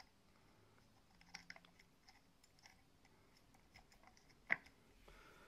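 Mostly near silence with a few faint clicks of fingers handling an air strut's metal stud and nut, and one sharper click about four and a half seconds in.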